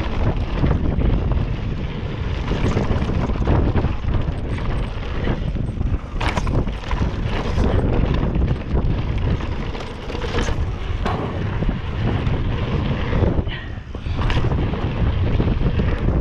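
Mountain bike descending a dirt jump trail at speed: wind buffeting the on-board camera's microphone over the rumble of tyres on dry, loose dirt, with several sharp knocks and clatters as the bike hits bumps and lands.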